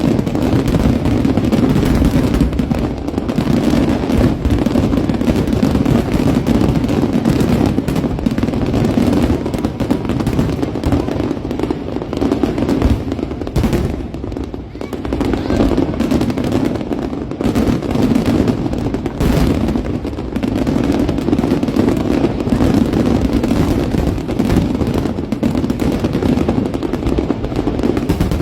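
Aerial fireworks bursting in a dense, continuous barrage of rapid pops and booms, with a brief lull about halfway through.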